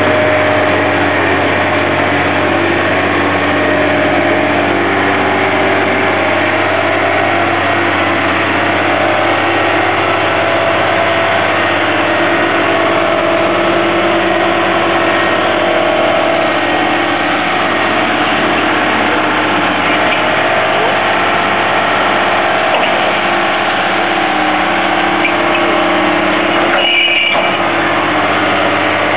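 Liebherr HS 895 dragline's diesel engine running steadily, with a brief sharp high sound near the end.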